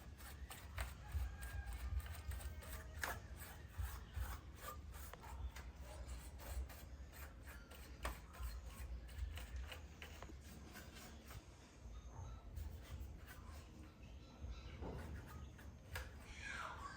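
Rubbing and scraping with scattered small clicks, like hands working with small tools on a bench, over a low steady hum.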